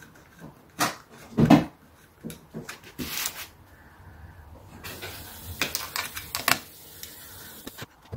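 Small hand driver working the screws of a little wooden frame: scattered clicks and taps of the metal tool on screw heads and wood. A soft scraping stretch runs through the second half.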